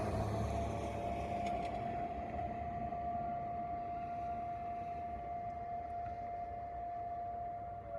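Fire station alert siren holding a steady tone at full pitch, starting to drop in pitch near the end.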